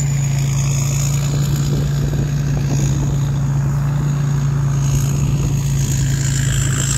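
Rice combine harvester's engine running at a steady speed, a constant low hum with a thin high whine above it.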